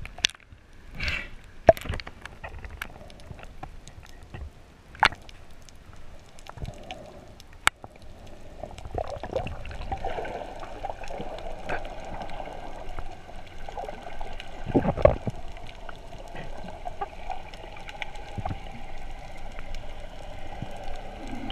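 Muffled underwater sound picked up through an action camera's waterproof housing as it goes below the sea surface: water gurgling, with several sharp clicks and knocks. From about eight seconds in a steadier, louder underwater hum sets in.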